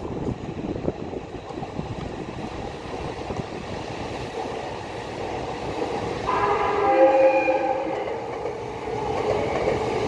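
Trains running on the tracks, their wheels rumbling and clattering. About six seconds in, a train horn sounds for roughly two seconds as a chord of several steady notes, louder than the running noise.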